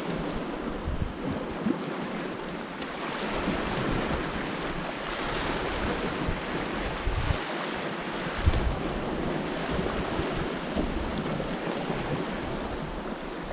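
Sea waves washing steadily against a rocky shore, with wind gusting on the microphone in uneven low rumbles.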